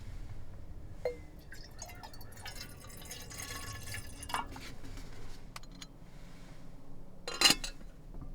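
A drink being poured into a glass, with a few small clinks and one sharper knock near the end.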